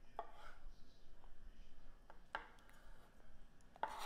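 Chef's knife slicing through smoked chicken sausage and knocking on a plastic cutting board: three sharp taps, spread a second or two apart.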